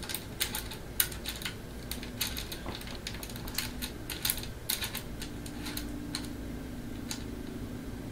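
Irregular light clicks and ticks of plastic and metal as the CO2 cap screw at the base of a Crosman C11 airsoft pistol's grip is turned by hand; the clicks thin out toward the end.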